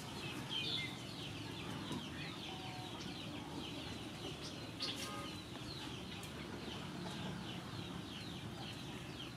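Birds calling: a rapid, steady run of short, high, falling chirps, with chickens clucking.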